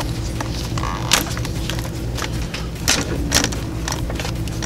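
Alfa Romeo Giulia QV steering wheel's faceplate trim being worked loose by hand at its corners: scattered clicks and creaks of the trim, over a steady low hum.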